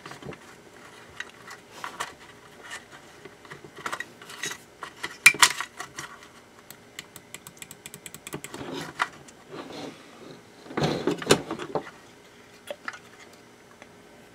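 Small plastic clicks and rattles as fingers work the switch parts inside an opened hand mixer's handle, with louder clusters of knocks about five seconds in and again near eleven seconds.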